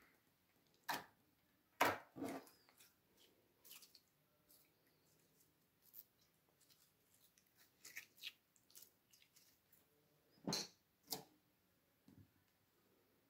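Clear slime squelching and crackling in irregular small clicks as it is stretched and folded by hand, with a few louder ones about a second or two in and again near the end.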